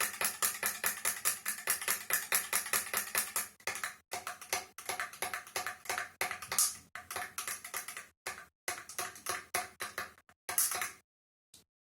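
A metal spoon stirring briskly in a glass of milk mixture, clinking against the glass about six times a second with a faint ringing note; the clinks thin out and stop near the end.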